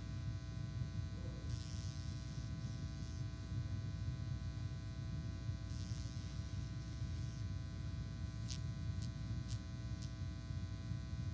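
Steady electrical buzz and mains hum from a church sound system, with a few faint rustles and light clicks.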